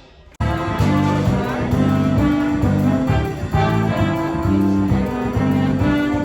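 Brass-led instrumental music, beginning abruptly about half a second in after a brief gap as the previous piece fades out.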